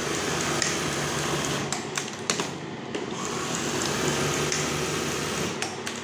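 Brother 814 buttonhole sewing machine's mechanism clattering steadily, with a few sharp clicks about two seconds in and again near the end.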